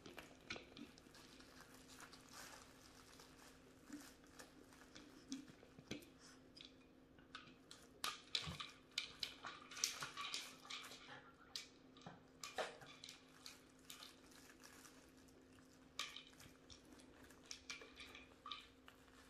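Faint, scattered clicks and crunching from two Bichon Frise puppies nosing treat-dispensing toys and chewing the treats that come out, coming in clusters around the middle and again near the end.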